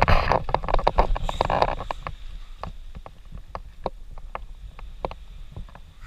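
Rustling and scraping of leaves and twigs right against the camera microphone, then a string of irregular sharp clicks and taps close to the lens, about two or three a second.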